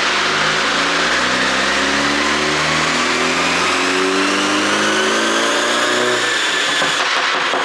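BMW 530i's turbocharged four-cylinder engine and exhaust under acceleration, the engine note climbing steadily in pitch. About six seconds in, the throttle closes and the exhaust breaks into a rapid run of crackles and pops on the overrun, produced by an ECU tune set up for pops.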